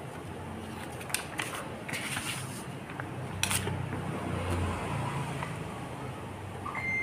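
Sheets of heat-transfer vinyl crinkling and rustling as they are handled, with a few sharp crackles, the loudest about three and a half seconds in. A low rumble swells in the background around the middle.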